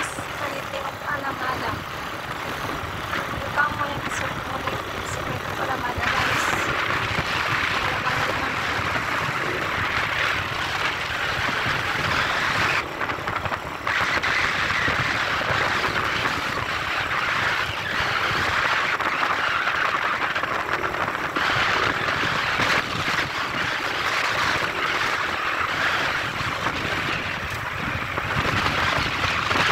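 Steady running noise of a vehicle travelling along a road: engine, tyres and rushing air blend into an even hiss, with a short dip about thirteen seconds in.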